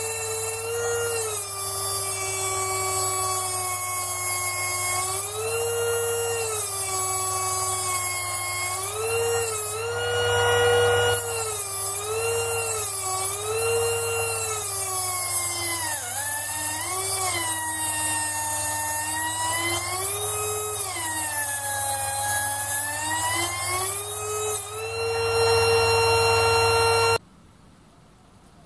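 Air-powered pencil die grinder running at high speed with a whine, its pitch dipping and recovering again and again as the grinding point is fed into the spinning spindle register of a Sherline micro lathe to grind out chuck runout. A steady low hum runs underneath, and both cut off abruptly near the end.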